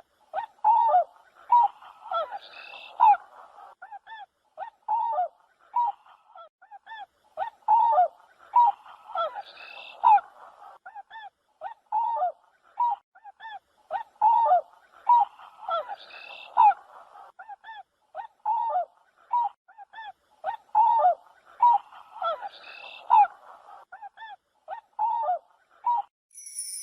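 Swan calling: a long series of short calls that drop in pitch, often two or three close together, with the same run of calls repeating about every six and a half seconds.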